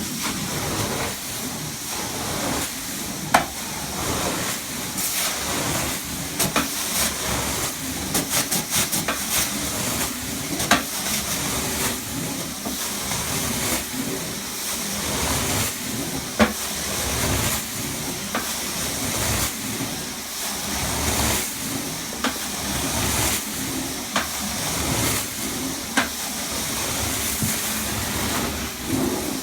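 Carpet steam-cleaning extraction machine running: a steady hissing rush from the wand's spray and suction, with sharp clicks and knocks now and then and a quick run of ticks about eight seconds in.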